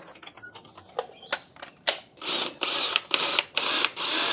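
An impact wrench hammering at a wheel's lug nuts in several short bursts, starting about two seconds in, to take the wheel off. Before that, a few separate clicks.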